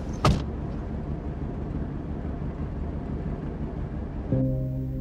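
A single sharp thump a fraction of a second in, then the steady low rumble of a car. Music comes in near the end.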